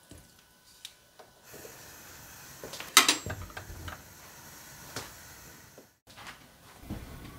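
A glass pot lid is set on a stew pot with one sharp clack about three seconds in, over a faint steady hiss. A lighter knock follows a couple of seconds later.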